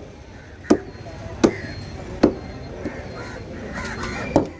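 Heavy curved fish-cutting knife chopping through fish on a wooden board: four sharp chops, the first three about three-quarters of a second apart, the last near the end.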